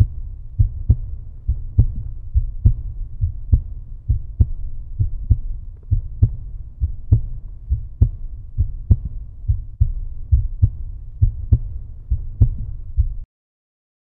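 Heartbeat-like outro sound: a steady low rumble with regular deep thuds, about two to three a second, that cuts off abruptly near the end.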